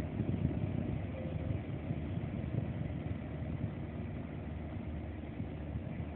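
Steady low rumble of the Flying Cat 5 high-speed catamaran's engines as it pulls out of the harbour, heard across the water.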